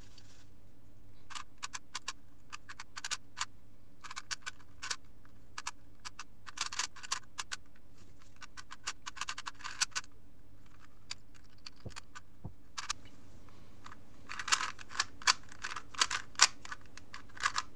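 Alpha Feng V 3x3 speedcube, freshly lubed with silicone oil, being turned by hand through a solve: quick runs of plastic clicks and clacks as its layers turn, busiest and loudest near the end.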